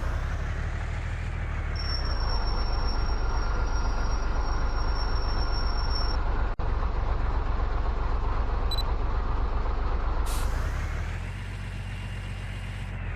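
A truck engine running steadily under load, its sound swelling and easing off near the start and again near the end, with a brief break about six and a half seconds in.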